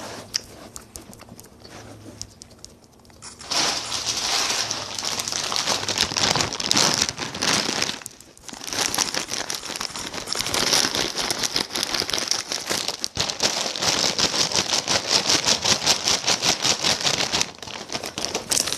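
Chip bag crinkling as a hand rummages through it. It is soft at first, then loud and continuous from about three and a half seconds in, with a brief pause around eight seconds.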